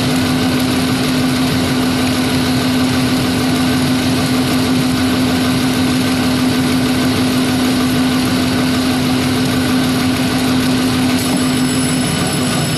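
Straw-making machine running: a steady mechanical hum with a constant low tone, which drops away near the end.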